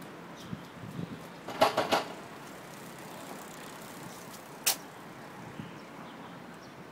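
Cats eating from bowls on paving: a quick run of clicks and knocks about a second and a half in and one sharp click near five seconds, over steady outdoor background noise.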